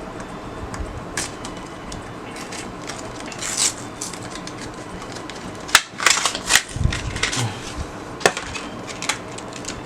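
Small plastic and metal clicks and taps as the internals of an opened Acer Swift 3 laptop are handled around its RAM slot. A few sharp clicks stand out, the loudest about six seconds in and another about eight seconds in, with some dull knocks between them.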